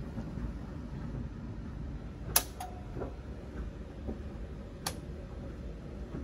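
Miniature circuit breakers being switched by hand in a distribution board, giving a few sharp clicks over a low steady hum. The loudest click comes about two and a half seconds in, with a second close behind it, another near the three-second mark and one more about five seconds in. The power is being cut and restored to reset a hung Sonoff 4CH Wi-Fi relay.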